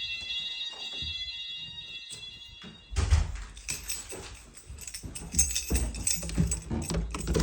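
Nittan fire alarm sounders holding a steady high-pitched tone during a weekly alarm test. From about three seconds in, a louder clatter and rustle of handling noise takes over.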